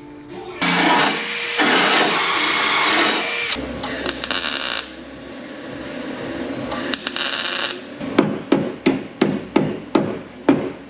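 A power tool runs in a long burst with a thin high whine, then two shorter bursts, during body work on a car's sheet metal. It is followed by about eight quick hammer blows, a little under three a second.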